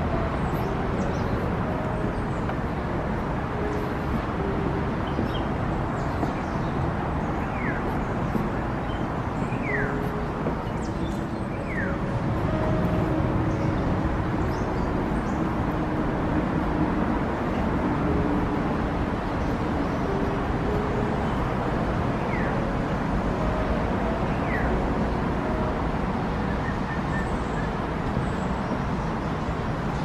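Steady outdoor background noise of distant city road traffic, with a few faint, short, high bird chirps now and then.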